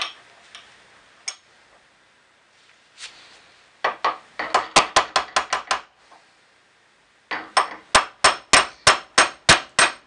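Hammer driving a steel pin into a 1967 Mustang's cast-steel lower door hinge. A few light taps come first, then two quick runs of ringing metal-on-metal blows, about four a second: about nine in the first run and about eleven in the second, starting near the middle.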